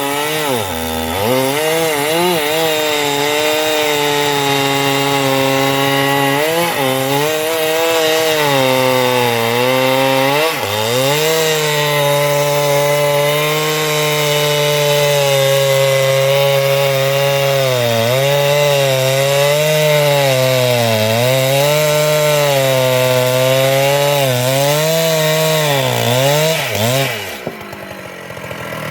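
Two-stroke Husqvarna chainsaw cutting into a sengon (albizia) trunk at full throttle. Its pitch sags repeatedly as the chain bogs down in the wood and recovers between dips, then it falls off to a low idle near the end.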